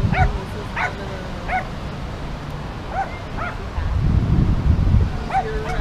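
Corgi giving short, high whining yips, one about every half second, pausing briefly in the middle and starting again near the end. A low rumble comes in about four seconds in.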